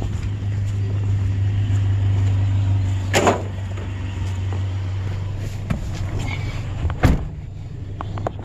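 Pickup truck engine running with a steady low hum, with two loud knocks, about three and seven seconds in.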